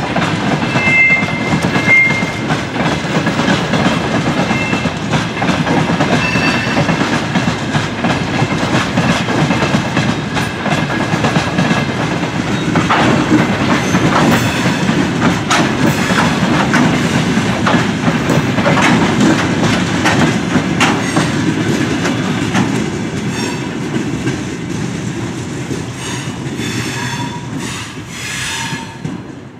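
Freight train of open gondola wagons rolling past: a steady rumble with wheels clattering over rail joints and a few faint wheel squeals. The sound thins out near the end as the last wagon goes by.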